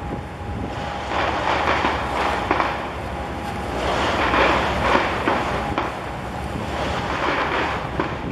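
Wind buffeting the microphone over the rush of water churned beside a passing container ship's hull, swelling and easing every few seconds, with a low rumble underneath.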